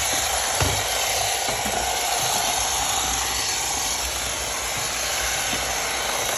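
Roomba robot vacuum running: a steady whirring hiss of its vacuum fan and brushes, with a whine over it. There is a single knock about half a second in.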